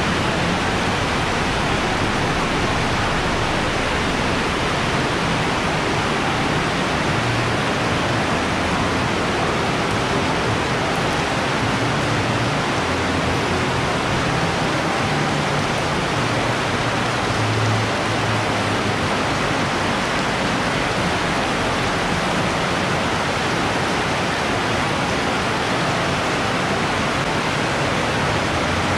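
Heavy rain pouring down: a loud, steady, dense hiss of the downpour that does not let up.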